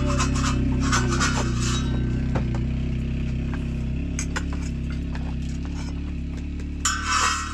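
Rubbing and scraping in the first second or so as a flatbread is handled at a clay bread oven, then a few light clinks of metal dishes, over a steady low hum. Denser scraping comes back near the end.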